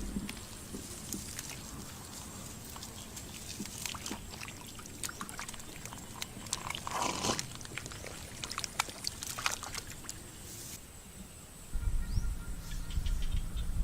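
Shallow water sloshing and splashing with scattered small splashes and drips, one longer splash about halfway through, as fish are caught by hand in a flooded rice field. A low rumble sets in near the end.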